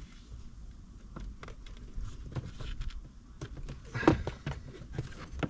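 Scattered light clicks and knocks of parts and tools being handled during steering column disassembly, with one louder knock that rings briefly about four seconds in.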